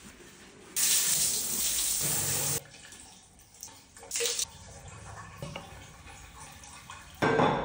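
Water running from a bathroom sink tap for about two seconds, then shut off abruptly. This is followed by a short splash about four seconds in and quieter handling sounds, and a loud sound starts just before the end.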